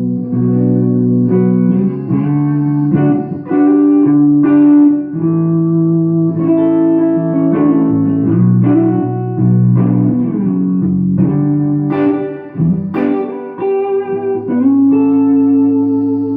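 Takamine GX-100 electric guitar with DiMarzio pickups played through a small lunchbox tube amp: a string of picked notes and chords, each ringing out before the next is struck.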